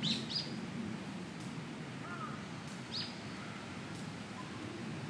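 A bird calling outdoors with a few short, sharp high chirps, spaced a second or more apart, over a steady low background murmur.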